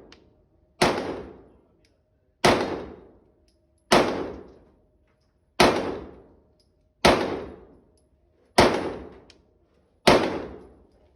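Glock 26 9mm pistol fired in slow, evenly paced single shots, seven in all, about one and a half seconds apart. Each shot leaves a ringing echo that dies away over about a second.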